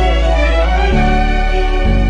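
Instrumental close of a pop song: held chords over a deep bass note that changes about a second in and again near the end, with no vocals.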